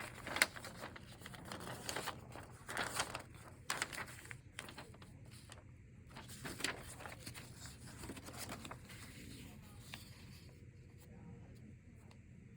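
Paper rustling in a series of short bursts, as sheets of a folder of handwritten notes are handled and turned, over a low steady room hum.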